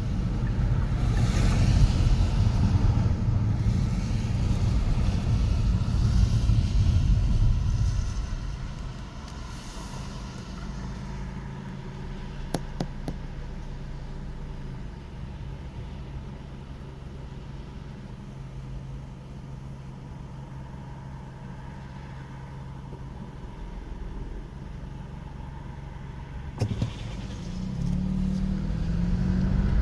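City street traffic: cars passing with a low rumble, loudest for the first eight seconds, then a quieter stretch with a steady low hum. There are a couple of sharp clicks near the middle and a knock near the end, before the traffic swells again.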